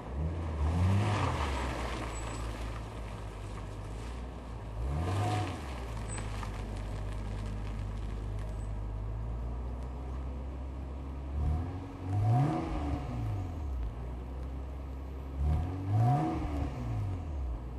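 Exhaust of a 1990 Toyota Chaser Avante 3000G (MX83), a 3.0 litre straight-six breathing through a Fujitsubo aftermarket muffler. It idles steadily and is revved in four short blips: about a second in, around five seconds, and twice near the end. The pitch of each blip rises and falls back to idle, and the last two are the biggest.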